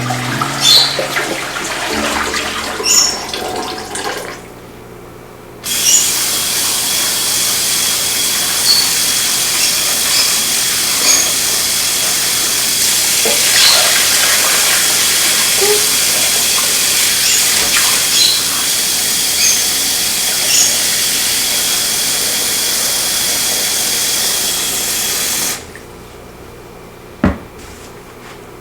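Water running steadily from a tap for about twenty seconds, with a few light clinks over it, then shut off. Before it starts there are a few clinks, and after it stops a couple of knocks.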